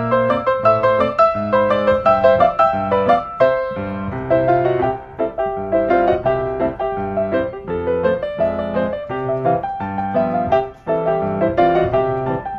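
Background piano music: a steady run of notes and chords, with a brief dip about eleven seconds in.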